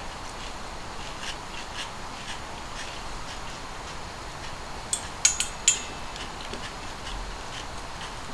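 Chopsticks and tableware clinking against plates and metal bowls: a quick run of about four sharp clinks about five seconds in, with a few softer taps over a steady background hiss.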